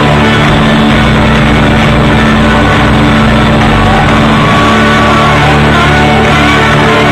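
A live folk band with banjo, mandolin and upright bass playing loudly and without pause.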